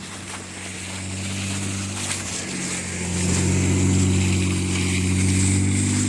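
A car engine running close by, growing louder over the first few seconds and then holding steady, its pitch starting to rise near the end as it revs up.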